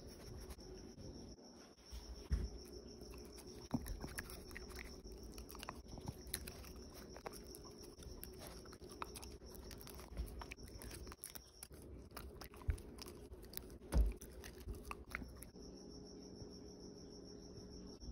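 A small Havanese dog chewing and biting bone marrow treats: irregular small smacks and crunches, with a few sharper bites, over a faint steady hum.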